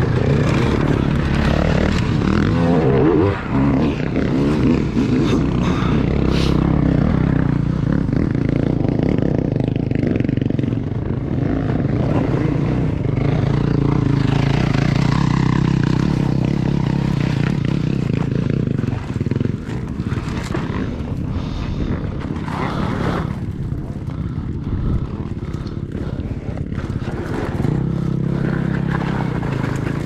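2001 Kawasaki KX250 single-cylinder two-stroke dirt bike engine running under way on a trail. The revs rise and fall with the throttle and dip briefly a few times, along with scattered clatter from the ride.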